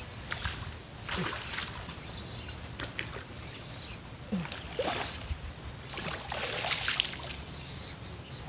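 Irregular splashing at the water's surface from a hooked fish being played in on a casting rod, over a steady high-pitched background hum.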